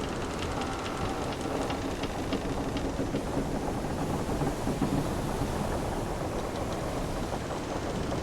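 Wooden sailing ship's timbers creaking over a steady wash of sea water, with long low creaks and light ticking through roughly the first five seconds.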